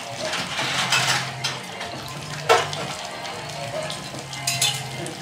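Kitchen clatter of dishes and utensils being handled, with one sharp knock about halfway through and lighter clicks near the end, over a steady low hum.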